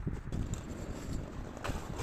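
Wind rumbling on the microphone, with a few faint knocks and a sharper click near the end.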